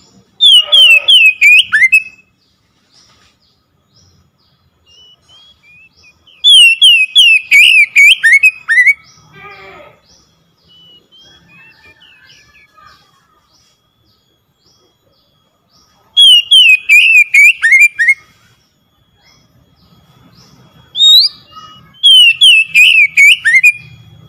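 Oriental magpie-robin singing: four loud phrases of rapid, downward-slurred whistled notes, each about two seconds long, separated by pauses with faint chirps and a single short note just before the last phrase.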